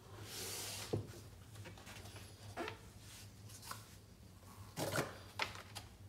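Faint handling noises as a canvas is shifted on a paper-covered table: a short scraping rustle, then scattered taps and knocks, the loudest about five seconds in, over a low steady hum.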